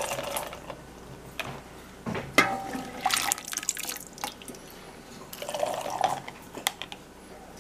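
Cooked kidney beans and their cooking liquid scooped from a pot and poured through a canning funnel into a glass pint jar, in a few separate pours with splashing and sloshing. Sharp knocks and clinks of the scoop come about two and a half seconds in.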